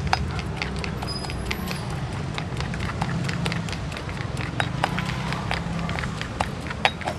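Food-stall background: a steady low hum with many sharp, irregular clicks and clacks.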